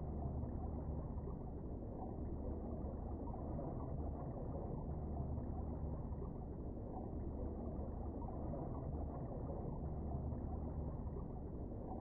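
Steady, muffled low rumble of underwater ambient noise picked up by a submerged camera in its waterproof housing, with no separate events.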